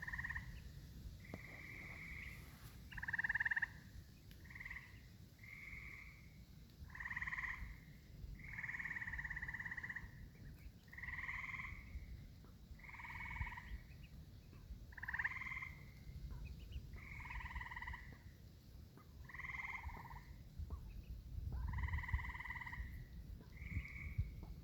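Frogs calling from the pond: a run of short trills, each lasting under a second and repeated every second or so, some overlapping as several frogs call. A low rumble runs underneath.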